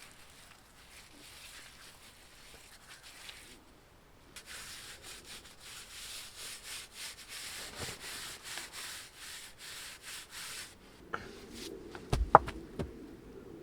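Wood being worked by hand with quick, repeated rasping strokes, fainter at first and louder for about six seconds in the middle. This is followed by a few sharp wooden knocks near the end, one of them the loudest sound.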